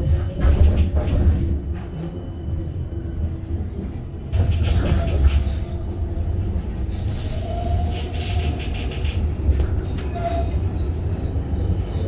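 Siemens Combino tram running on its rails: a steady low rumble with rattling, louder for a moment about half a second in and again from about four seconds in.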